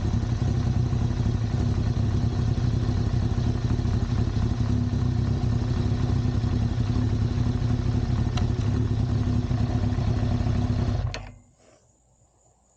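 Kawasaki Z1000 inline-four motorcycle engine running steadily at idle, then stopping about eleven seconds in.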